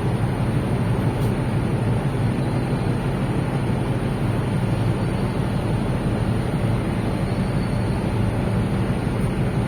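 Steady low rumble and rushing noise of a cruise ship under way, with no breaks or sudden sounds.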